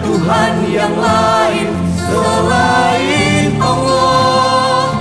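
Indonesian Islamic devotional song: a choir of voices singing over instrumental accompaniment, holding long notes toward the end.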